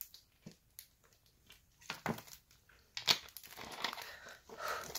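Thin plastic water bottle crinkling and crackling as it is gripped and drunk from, in several bursts from about two seconds in, loudest around three seconds, after a few faint clicks.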